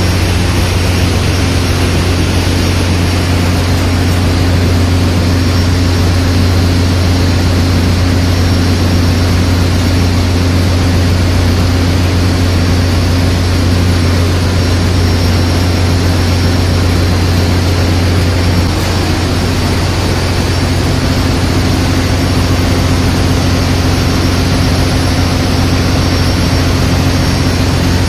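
Ship's engine-room machinery running: a loud, steady drone with a strong low hum and no breaks.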